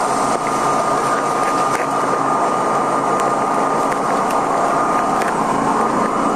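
R32 subway car standing still at a station, its onboard equipment and ventilation making a steady hum with a thin high whine and a few faint clicks.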